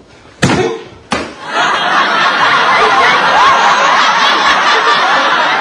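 A sharp hit with a short cry about half a second in and another sharp sound a second in, then a crowd bursting into loud, sustained laughter and chatter.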